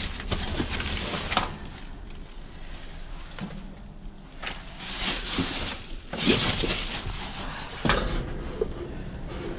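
Rustling and crinkling of paper, plastic bags and cardboard being pushed aside and lifted by hand while digging through dumpster trash, in several bursts, with a single knock near the end.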